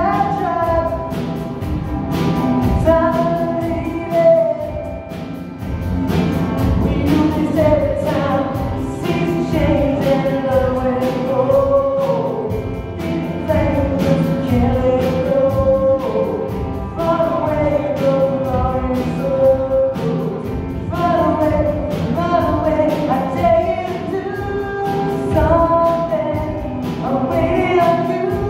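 A live band performing a song: several voices singing a melody over guitar, keyboard and a drum kit with a regular beat.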